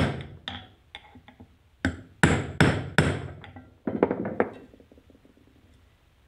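Hammer blows on a steel axle held against a ceiling fan's stator, driving the stator down onto its bearing. Sharp strikes with a short ring: one at the start, a quick run of four hard blows about two to three seconds in, then a few lighter knocks before they stop about halfway through.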